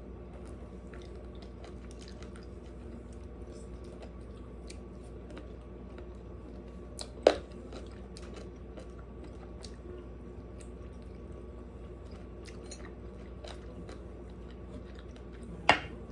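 Close-miked chewing and biting of baked chicken, with many small wet clicks over a steady low hum. Two much louder, sharp sounds stand out, one midway through and one near the end.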